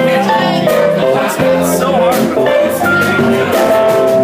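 Live band playing amplified music with electric guitars, an electric keyboard and drums, with cymbal hits keeping a steady beat.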